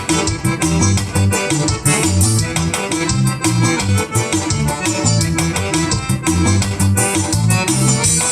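Medeli AKX10 arranger keyboard playing a Brazilian country-style (som da roça) tune, with a steady beat of percussion and a strong bass line under the melody.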